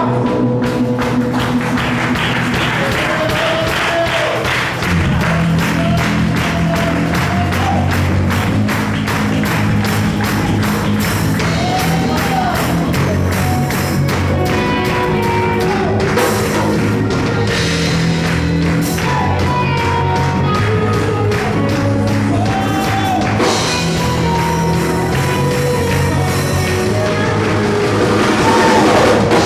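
A live band playing music, with a steady drum beat and a bass line under a gliding melody.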